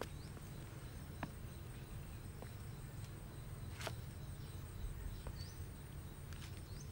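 Faint background ambience: a low steady hum and a thin high whine, with a few soft clicks and several short, faint rising chirps.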